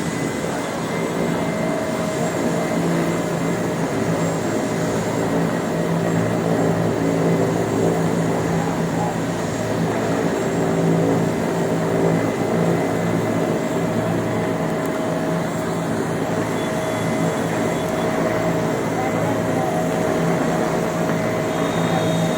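Helicopter engine and rotor running steadily: a continuous loud rushing noise with several constant whining tones.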